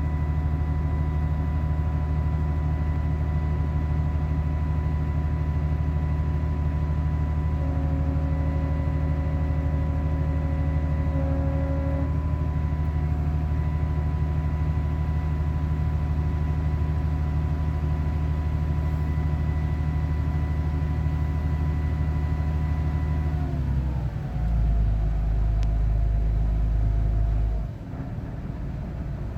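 Combine harvester running steadily with a constant machine hum and whine. Near the end its pitch falls as it slows, and a heavy low rumble follows for a few seconds.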